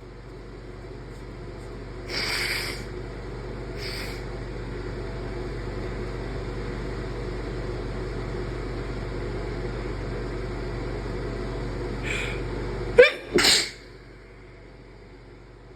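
A person's induced sneeze: two shorter noisy bursts about two and four seconds in, then one loud sneeze near the end that starts with a sharp catch and follows straight on with the main blast.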